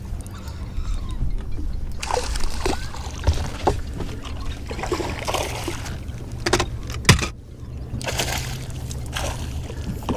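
A hooked smallmouth bass splashing and thrashing at the water's surface beside the boat as it is played and netted: a run of short, sharp splashes, with one loud knock about seven seconds in, over a steady low rumble.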